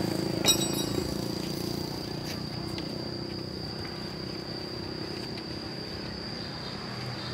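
A single sharp metallic clink about half a second in, ringing briefly, steel reinforcing bar striking metal. A steady high-pitched whine runs underneath, and a vehicle engine fades away over the first two seconds.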